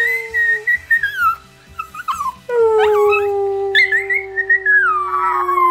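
Chihuahua howling: a long, wavering high howl that breaks off about two seconds in and starts up again. Beneath it runs a second, lower and steadier howl that slides slowly down in pitch.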